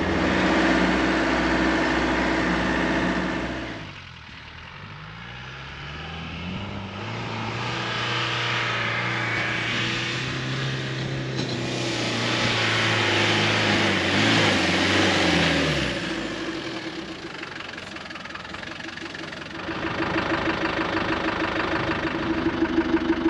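Land Rover Defender engine driving on soft sand. It hums steadily for the first few seconds, then drops away and comes back with its pitch rising and falling as it revs through the sand. Near the end a steady hum returns.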